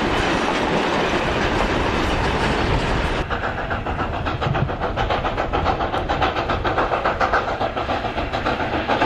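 Steam-hauled sugar-cane train: loaded cane wagons rumble and clack over the rails. About three seconds in, the sound changes to the steam locomotive's steady, rapid exhaust chuffs, several beats a second.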